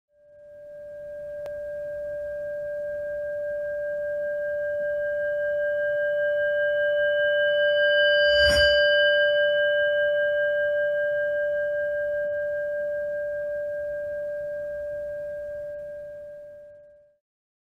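A ringing, singing-bowl-like tone sounding as an intro logo sting. It swells in from silence to a sharp strike about halfway through, then rings and fades away. There is a faint click early in the swell.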